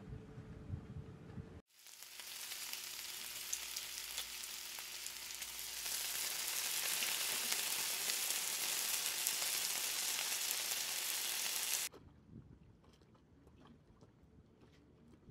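Diced courgette frying in a pan: a dense, steady sizzle that starts suddenly about a second and a half in, grows louder about halfway through, and cuts off abruptly near the end.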